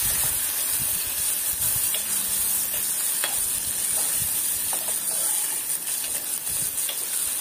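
Sliced onions, green chillies and curry leaves frying in hot oil in an aluminium pot, a steady sizzle, with a metal spoon stirring and clicking against the pot from time to time.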